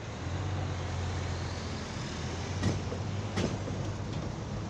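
An engine running with a steady low hum, with two short sharp sounds a little past halfway.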